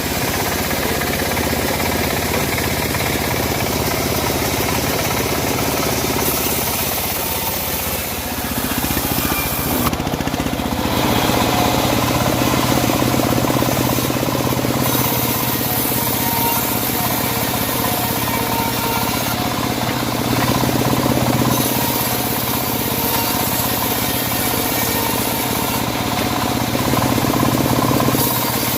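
Homemade bandsaw mill running and sawing through a teak log, a continuous mechanical saw noise; a steadier low hum sets in about ten seconds in.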